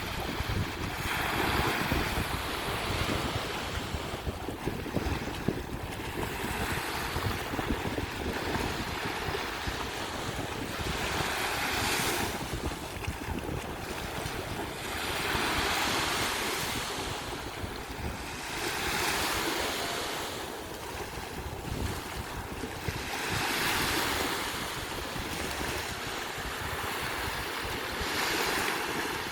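Sea waves breaking on a beach, each surge of surf rising and falling away about every four seconds, with wind rumbling on the microphone.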